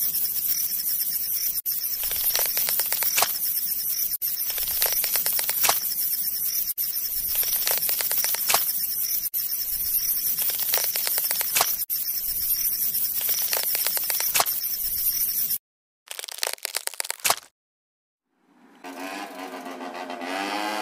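A steady crackling scrape with repeated clicks, which cuts off suddenly. After a short burst and a moment of silence, a power tool's motor starts and whirs, its pitch rising slightly near the end.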